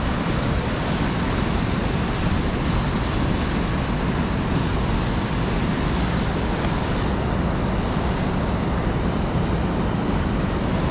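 Fast mountain river rushing over rocks close by: a steady, unbroken wash of whitewater.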